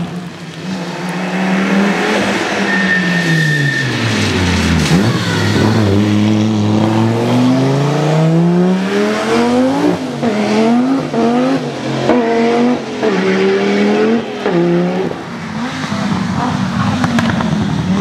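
Turbocharged five-cylinder engines of Audi quattro rally cars under hard acceleration. One car's note falls away, then climbs again, then rises and drops quickly through a run of gear changes. A brief high whistle sounds about three seconds in.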